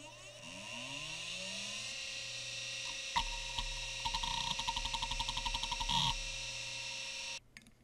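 Western Digital Caviar 2340 IDE hard drive spinning up with a rising whine that settles into a steady pitch. About three seconds in, the heads start seeking with a click and a rapid run of ticking that lasts about three seconds, then the drive runs on steadily until the sound cuts off suddenly near the end.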